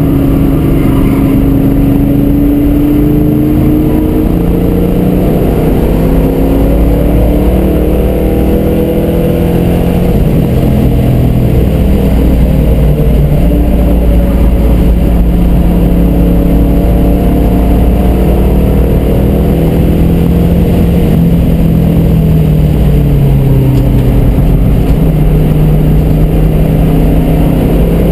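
1967 Shelby GT350's 289 V8 running hard at lapping pace, heard from inside the cabin. Its pitch rises and falls repeatedly as the car accelerates and slows through the corners.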